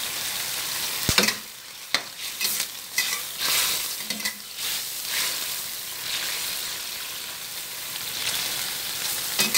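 A pan of fish cooking in boiling broth with a steady hissing bubble, while a utensil stirs it, scraping and knocking against the pan several times in the first half.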